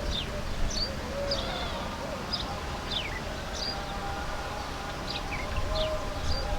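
Birds chirping: many short, quick downward-sliding chirps, a few each second, over faint held lower tones and a low rumble of wind or handling.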